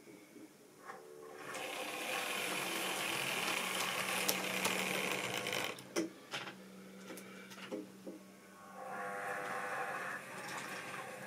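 Model railway locomotive's small electric motor whirring with a steady hum as a train runs on the track. The whir starts about a second and a half in, fades about six seconds in, and picks up again near the end, with a few sharp clicks in between.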